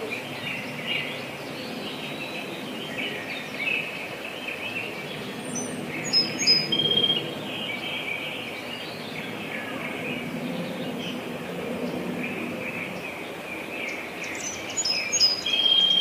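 A branjangan londo songbird singing a continuous run of chirps and trills, with sharper high notes about six seconds in and again near the end.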